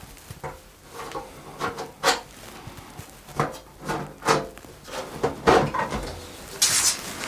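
A mid-tower PC case being handled and turned: a series of short knocks and scrapes, then a brief hissing rustle near the end.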